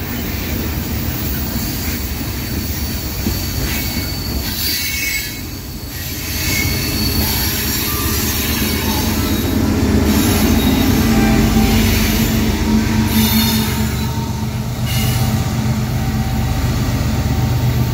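Freight train rolling past with wheels squealing on the last cars. Then the rear GE diesel-electric distributed-power locomotives pass working hard, in notch 8. The engine sound builds from about six seconds in and is loudest around ten to twelve seconds.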